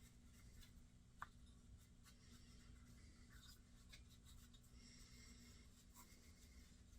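Near silence: room tone with a low steady hum, faint rubbing or scratching, and a few small clicks, one sharper click about a second in.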